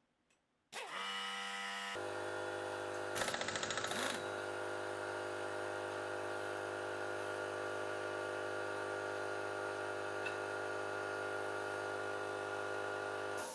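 An electric power tool starts abruptly. It hammers rapidly for about a second, then runs at a steady pitch for around ten seconds before stopping near the end.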